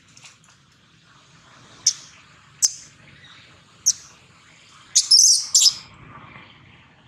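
Infant long-tailed macaque giving short, shrill distress squeals while its mother grabs and handles it: three single squeals about a second apart, then a louder burst of squeals about five seconds in.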